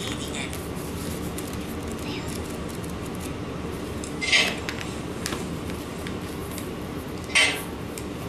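Two short scraping, clattering handling noises, about three seconds apart, over a steady low background hum.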